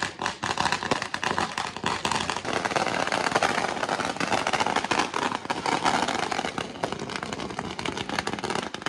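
Firecrackers going off in rapid, continuous crackling, many cracks a second without a break, thinning out at the very end.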